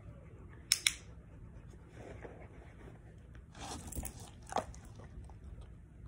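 Two sharp clicks in quick succession about a second in, then a dog crunching and chewing a treat a few seconds later.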